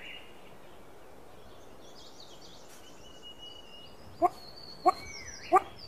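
Faint forest birds chirping, then from about four seconds in a male satyr tragopan begins his courtship call: short low calls a little over half a second apart, coming quicker.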